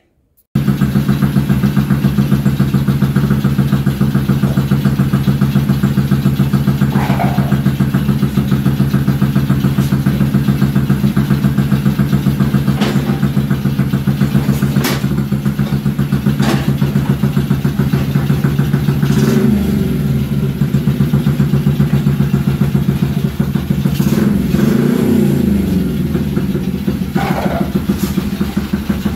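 A 50cc mini chopper's small engine running at a steady idle, starting suddenly about half a second in. The revs rise and fall briefly about twenty seconds in and again around twenty-five seconds, with a few short clicks.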